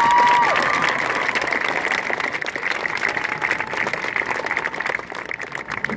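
Crowd in the stands applauding and cheering, many hands clapping at once, with a short cheer at the very start; the clapping thins out near the end.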